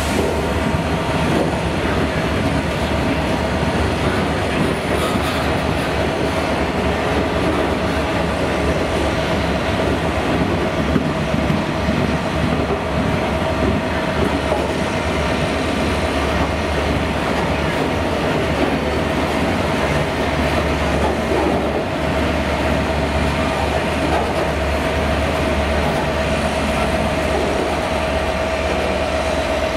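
A long freight train of loaded steel-coil wagons rolling past close by: steady wheel-on-rail rumble and clatter, with a steady high-pitched wheel squeal throughout.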